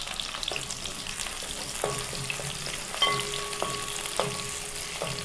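Shallots, green chillies and curry leaves sizzling as they fry in hot coconut oil in a pan, with scattered clicks and scrapes of a spoon stirring them.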